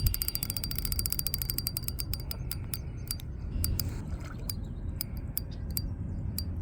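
Fishing reel clicking, a rapid run of clicks that slows to scattered clicks after about two seconds, over low rumbling handling or wind noise.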